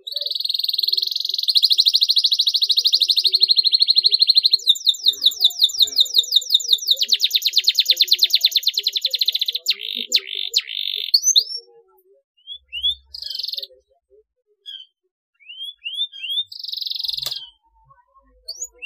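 Domestic canary singing: long, fast rolling trills and rapid runs of repeated notes for the first eleven seconds, then scattered short upward chirps with one brief trill near the end.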